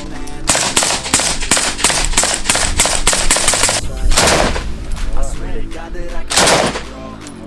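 Automatic gunfire at close range: a long rapid burst of evenly spaced shots, then two shorter bursts from a belt-fed machine gun about two seconds apart.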